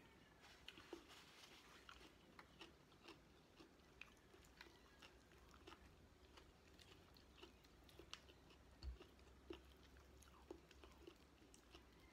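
Faint, close-miked chewing of chicken adobo and rice, eaten by hand: small wet mouth clicks and smacks at an irregular pace. A soft low thump comes about nine seconds in.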